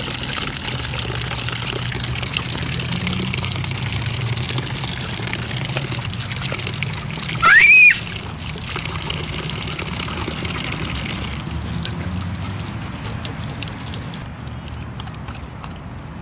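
Water running from a drinking-fountain spigot and splashing into a steel dog bowl, the flow stopping a little past two-thirds of the way through. Just before halfway, a brief loud squeal rising in pitch.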